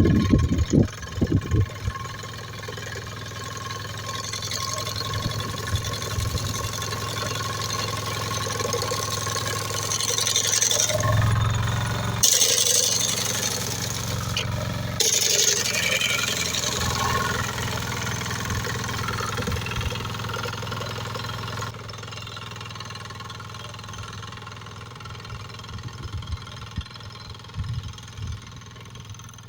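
Engine of a hay-mowing machine running steadily. It grows louder and noisier with abrupt changes partway through, then drops quieter in the last third.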